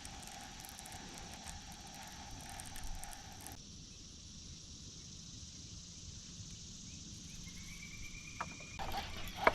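Steady high-pitched drone of insects over a low outdoor hiss. The background changes abruptly about three and a half seconds in and again near the end.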